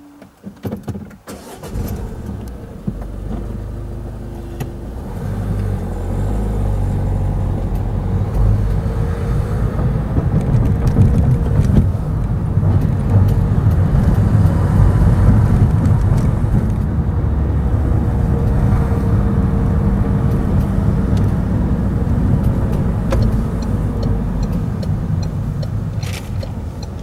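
A car engine starting about a second in, then running as the car pulls away and drives on, with a steady low rumble of engine and road noise.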